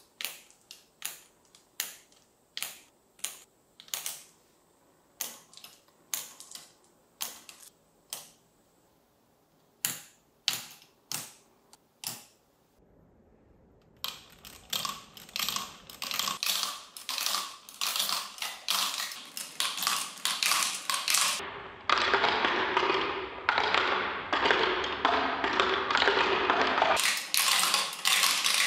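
Marbles clicking and clattering through a plastic marble run. At first single marbles dropped in one at a time give separate sharp clicks, about two a second. After a short pause, a whole batch runs down the tubes and tracks in a dense, continuous rattle that gets louder.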